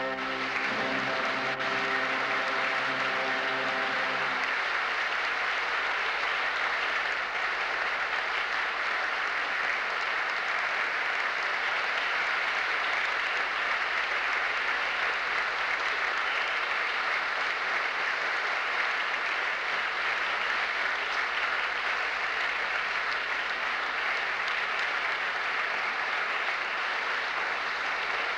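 Audience applauding steadily. At first it sounds over the music's final held chord, which ends about four seconds in.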